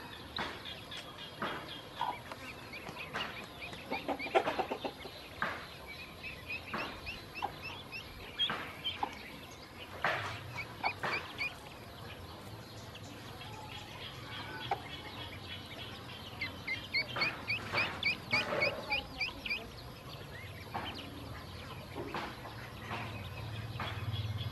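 Ducklings peeping in quick runs of short, high chirps, with scattered clicks and rustles as they forage through grass.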